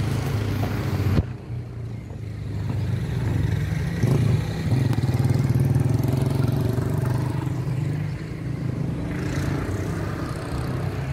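Motorcycle engines in street traffic passing by, the sound swelling about four seconds in and easing off near the end.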